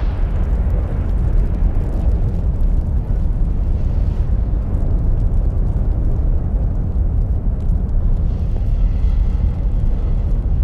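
Steady deep rumbling rush, a sound effect laid under an animated zoom-in, heaviest in the bass; faint higher tones join it about eight seconds in.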